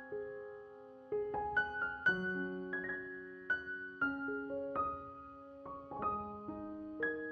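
Soft background piano music: single notes and chords struck at an unhurried pace and left to ring and fade.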